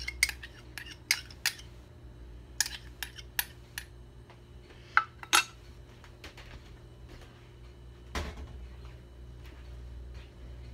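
Kitchen utensils and dishes clinking and tapping: a quick run of sharp clicks in the first few seconds, two more a little after the middle, and a single knock about eight seconds in.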